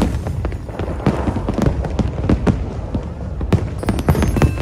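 Fireworks display: a rapid, irregular string of bangs and crackles over a steady low rumble.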